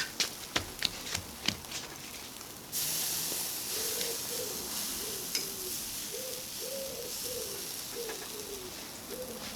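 A few sharp metal clicks as chicken pieces are laid on a charcoal barbecue grill. About three seconds in, a sudden steady sizzle starts as the meat hits the hot grate over glowing coals. A pigeon coos repeatedly in the background.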